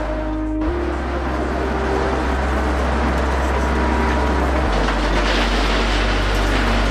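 Heavy earth-moving and gravel-processing machinery running: a dense, steady rumble and rattle with a low drone that shifts pitch twice.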